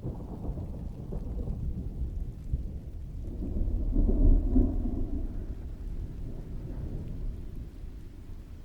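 Thunder rolling over steady rainfall: a deep rumble swells about three seconds in, peaks near the middle and fades away, with the rain hissing on underneath.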